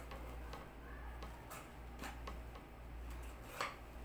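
Scattered light ticks and taps at uneven intervals, one louder near the end, over a low steady hum.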